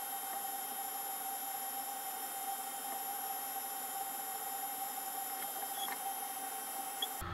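Steady faint whine and hiss of room tone, with a few faint clicks near the end.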